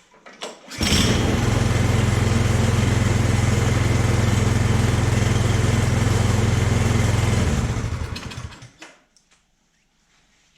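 Craftsman snowblower's small gasoline engine firing up about a second in and running steadily at a fast idle for about seven seconds, then shutting off and spinning down. It starts after its gummed-up carburetor was cleaned and the loose spark plug wire was put back on.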